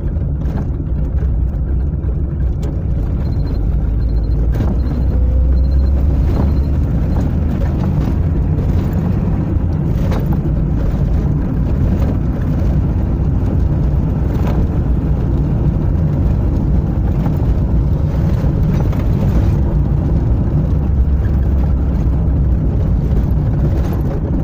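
Inside a moving IZh-2126 Oda hatchback: steady road and engine rumble with a few light knocks from the body. No squeak is heard from the rear hatch, just refitted with a new, dry striker bolt.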